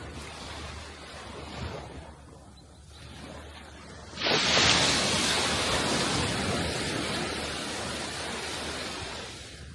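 Sea waves washing on the shore. A quieter wash fades over the first few seconds, then a wave breaks suddenly about four seconds in, and its loud rushing surf slowly dies away.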